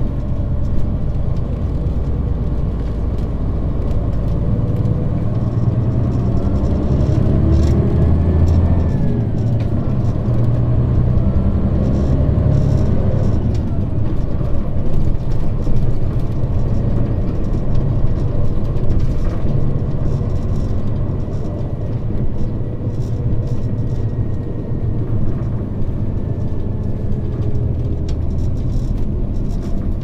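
Mitsubishi Fuso KL-MP35JM bus's naturally aspirated 12.9-litre 6M70 six-cylinder diesel, heard from inside the bus. It pulls away with the engine pitch rising and breaking off at gear changes of the manual gearbox about nine and thirteen seconds in, then runs at steady road speed with a faint high whine.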